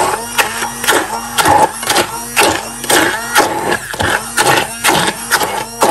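Electric blender pulsed over and over, about twice a second, each burst spinning up and dropping back. It is chopping onions, carrots, garlic, ginger and herbs in olive oil only roughly, not to a smooth purée.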